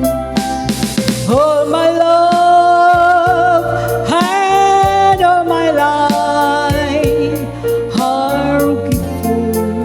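A woman singing a slow song with a live band of drums, bass, keyboard and rhythm guitar, holding long notes with vibrato over steady drum beats.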